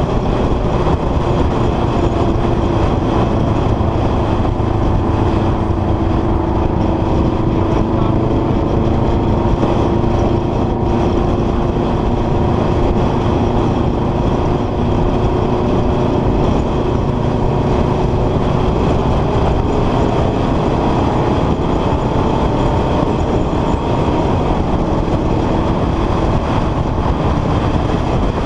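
Honda CBR sport motorcycle's engine running at a steady cruise, its note drifting slowly up and down in pitch, under a steady rush of wind noise on the camera's microphone.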